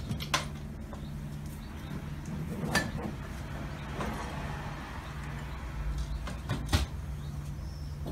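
A wooden sideboard's lower cupboard door clicking open, some rummaging inside, and the door knocking shut about two-thirds of the way in: three sharp knocks in all, over a steady low hum.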